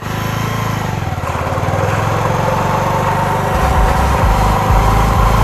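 Bajaj Pulsar 150's single-cylinder engine running at steady revs, with an irregular low rumble joining in about three and a half seconds in.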